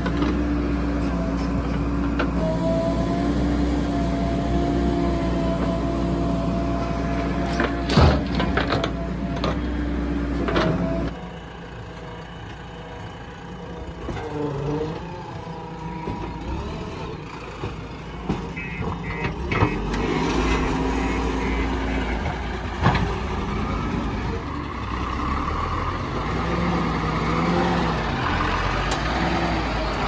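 Diesel engine of a JCB backhoe loader running steadily under load, with a few sharp knocks, the loudest about eight seconds in. About eleven seconds in the sound drops away, then the engine comes back quieter, its pitch rising and falling as it revs.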